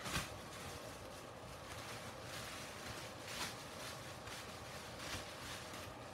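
Room tone: a steady low hiss with a faint hum, broken by a few soft clicks, the sharpest just at the start.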